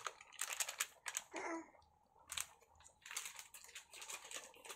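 Faint, crackly clicks and rustles in short irregular clusters while chilli powder is shaken out by hand over shellfish in an aluminium pan.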